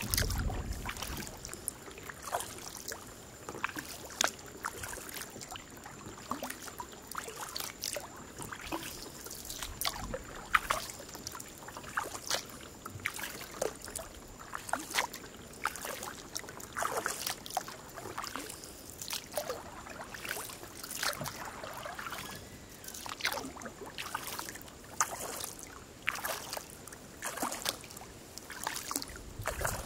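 Kayak paddling on calm water: irregular small splashes and drips as the paddle blade dips in and lifts out, with water trickling along the hull. A faint steady high-pitched tone sits underneath.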